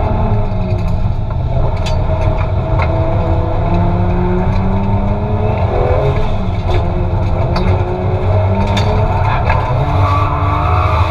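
Turbocharged Toyota 2JZ inline-six with a T78 turbo, heard from inside the Silvia S15's cabin while drifting: the revs rise and fall over and over, with several short sharp cracks along the way.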